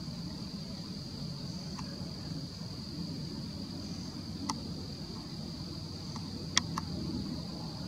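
Steady high-pitched insect chorus over a low rumble of background noise, with a sharp click about four and a half seconds in and two more close together near the end.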